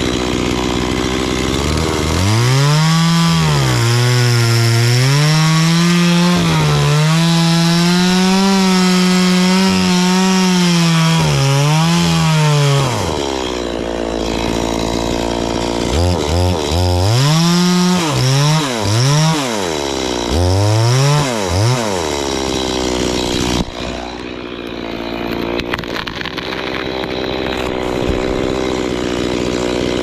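Two-stroke top-handle chainsaw cutting through the trunk of an anjili tree. It runs at full throttle in the cut for about ten seconds, its note wavering under load, then drops to idle. It is then revved in about five short blips before settling back to a steady idle for the last several seconds.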